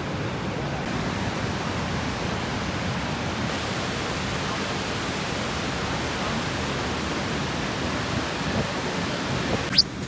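Niagara's Horseshoe Falls: the steady, even rush of a huge volume of falling water, with a brief sharp click near the end.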